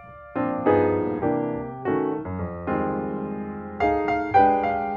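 Background piano music: notes and chords, each struck and then fading.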